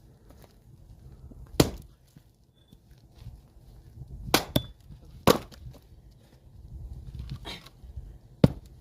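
Axe chopping firewood, splitting logs: about four sharp wooden strikes a second or more apart, one followed quickly by a second knock.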